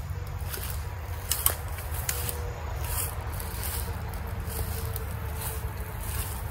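Footsteps crunching irregularly through dry leaf litter and twigs, with brushing from plant stems and leaves, over a low steady rumble.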